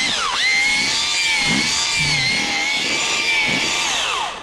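Makita cordless SDS-plus hammer drill turning a 25 mm earth auger bit into gravelly soil, widening a hole. The motor whines steadily, its pitch dipping sharply under load just after the start, and it winds down and stops near the end.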